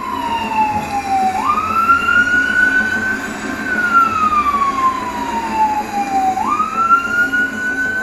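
Ambulance siren wailing. Twice, the pitch climbs quickly and then slides slowly down over several seconds.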